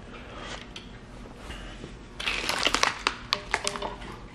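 Faint rustle, then from about two seconds in a dense run of crackling and sharp clicks.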